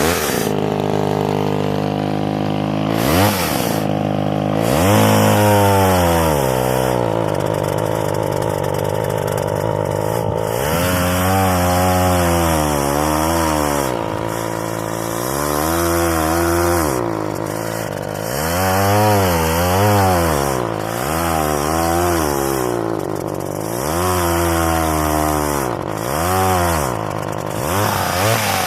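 Old Craftsman two-stroke chainsaw running at a steady speed for a few seconds, then revved up and down repeatedly, about seven times, while it is put to a piece of wood. The owner suspects something is wrong with its clutch.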